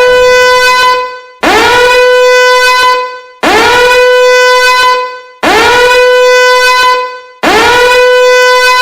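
A loud, horn-like tone sounded in repeated blasts about every two seconds, each one sweeping quickly up in pitch, held steady for about a second and a half, then cut off.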